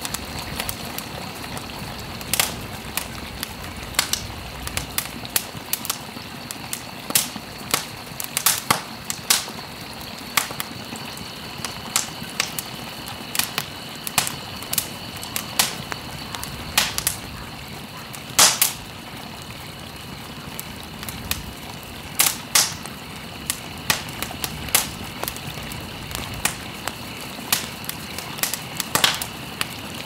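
Ambient nature sound bed: a steady rushing hiss with many irregular sharp crackles and pops scattered through it, and two faint steady high tones above.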